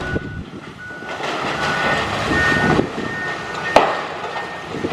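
Reversing alarms on demolition machinery beeping steadily, two at slightly different pitches, over crunching and clanking of debris. One sharp bang, the loudest sound, comes a little before four seconds in.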